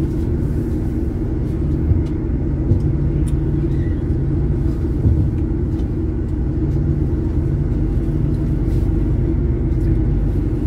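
Heavy truck's diesel engine running at low speed, heard from inside the cab: a steady low rumble, with a few short knocks and rattles as the truck rolls over potholes.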